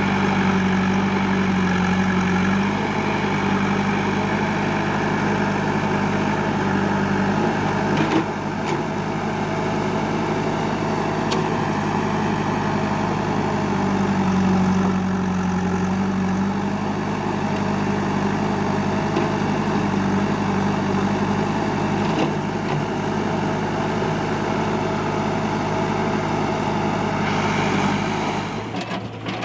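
Old Kirloskar-engined JCB backhoe loader's diesel engine running steadily, its pitch lifting slightly twice, with a couple of short knocks. The engine sound drops away near the end.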